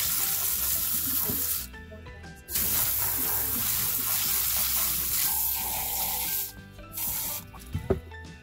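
Water spraying from a hand-held hose nozzle onto tumbled stones and ceramic media in a mesh sieve, rinsing the tumbler grit slurry off them. The spray runs for under two seconds, breaks off briefly, runs again for about four seconds and stops well before the end.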